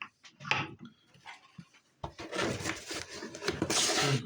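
Metal jewelry tools handled on a bench while doming silver pieces: two short clinks, then about two seconds of rattling and scraping of metal, loudest near the end.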